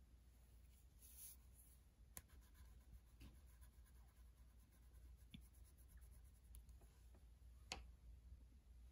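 Wax crayon rubbing on paper as a small patch is coloured in, very faint, with a few light clicks.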